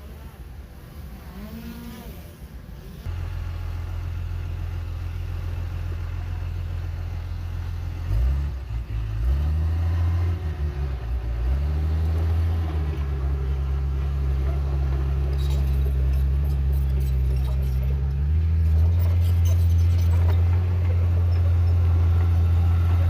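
Heavy diesel engine of earthmoving machinery that comes in loudly about three seconds in, its pitch rising and falling several times as it is revved, then running steadily and growing louder toward the end.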